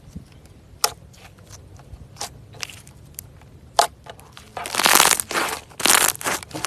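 Crackling and crunching as something is crushed: a few single sharp snaps about a second and a half apart, then, about two-thirds in, a dense loud run of crunching.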